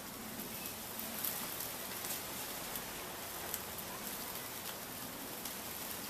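Casablanca Victorian ceiling fan running: a steady hiss with scattered faint ticks.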